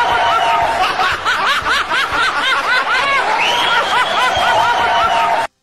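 High-pitched snickering laughter: quick rising-and-falling yelps, several a second, with the same stretch recurring about every five seconds like a loop. It cuts off suddenly near the end.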